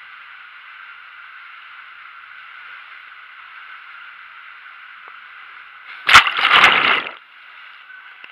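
Water rushing steadily through an enclosed water-slide tube as a rider slides down it. About six seconds in comes a loud splash lasting about a second as the rider drops out into the pool.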